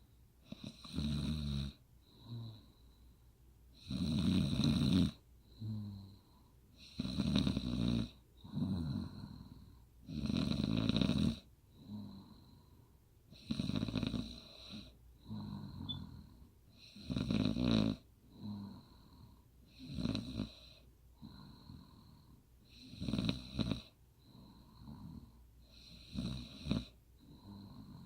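A woman snoring, with a loud snore about every three seconds and a softer sound between each pair of snores.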